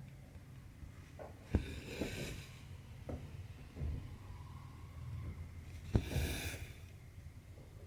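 Cross-stitching on Aida cloth: twice, a sharp pop as the needle punches through the fabric, followed by a short raspy swish of cotton thread being drawn through.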